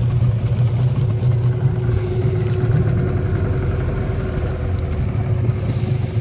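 Small fishing boat's motor running steadily, a constant low hum with a steady tone above it.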